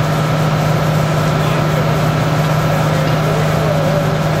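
An engine running steadily at a constant speed, an even, unbroken drone.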